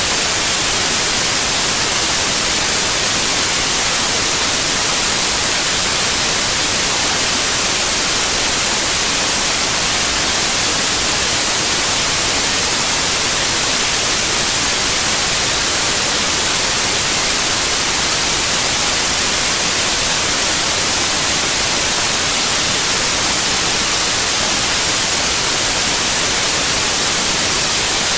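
Loud, steady hiss of electronic static, even and unchanging, brighter in the treble than the bass, with no other sound in it.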